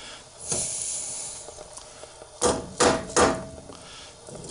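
A rubber mallet tapping an Ox locker differential carrier three times in quick succession, a little past halfway, to seat its dummy carrier bearings in a Dana 30 axle housing. There is a short scraping rub about half a second in.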